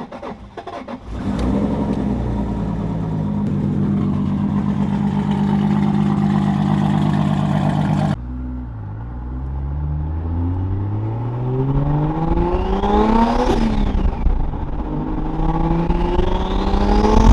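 Toyota Mk IV Supra's 2JZ-GTE turbocharged inline-six, built to about 1000 hp, running loud at a steady pitch. About eight seconds in the engine note drops off suddenly, then it accelerates hard with revs climbing, falls at a gear change about thirteen seconds in, and climbs again through the next gear.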